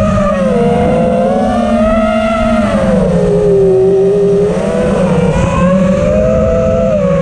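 Quadcopter motors and propellers whining as it flies, heard from its own onboard camera. The pitch rises and falls with the throttle and drops for about a second around the middle.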